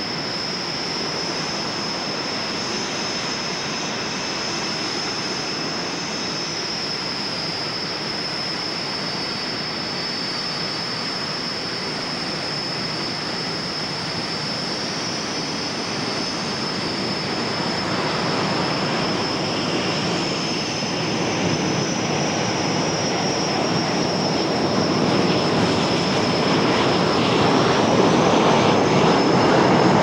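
Canadair CT-114 Tutor jet's turbojet engine running: a high, slightly wavering whine over a steady rush of jet noise that grows louder over the second half.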